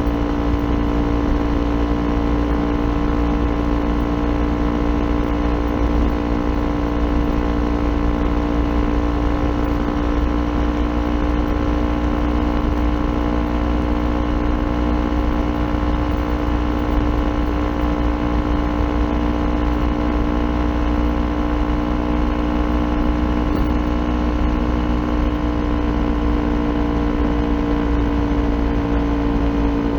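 Kawasaki Ninja 400's parallel-twin engine breathing through an Akrapovic aftermarket exhaust, running at steady revs while cruising, its pitch easing slightly lower near the end.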